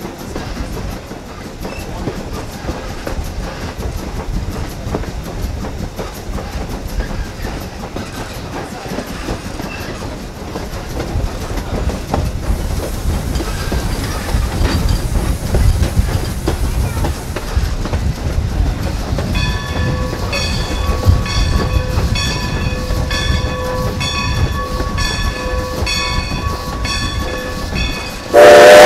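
Strasburg Rail Road #90, a 1924 Baldwin 2-10-0 Decapod steam locomotive, standing with a low steady rumble. About two-thirds of the way through, its bell starts ringing at roughly one stroke every three-quarters of a second. Right at the end the steam whistle starts, far louder than anything before it.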